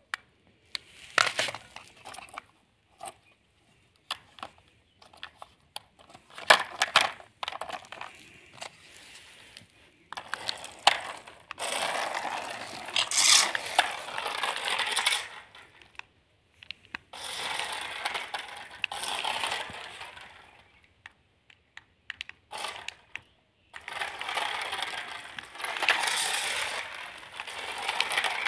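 Small plastic RC stunt car driving and tumbling over pavement: its hard plastic wheels and body clattering and scraping, with its little gear motor whirring, in several runs of a few seconds each broken by sharp clicks and knocks.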